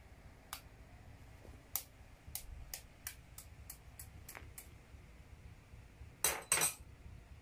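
A metal spoon tapping an egg's shell about a dozen times, unevenly, to crack it open, then two louder, longer knocks near the end.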